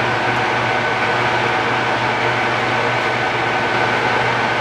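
Standard Modern 16-60 engine lathe running steadily, a smooth mechanical hum with a thin steady high whine over it.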